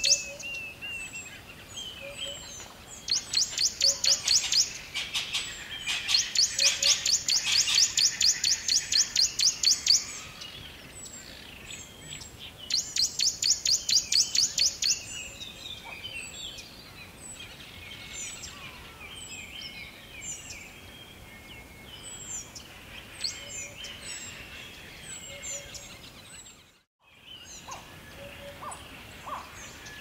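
A forest bird chorus with many short, high chirps and calls. A loud, rapidly pulsing high trill of about four pulses a second comes in three stretches of a few seconds in the first half. Near the end the sound drops out briefly to near silence.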